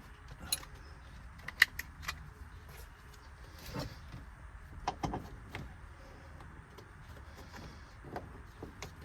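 Scattered metal clicks and clinks of seat belt bolts and anchor hardware being handled and fitted. The sharpest click comes about a second and a half in, with a cluster of knocks around the middle.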